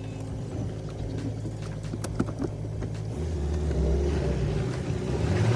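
Car engine labouring to climb a steep, wet, muddy slope. About three seconds in, its note drops lower and grows louder as it revs.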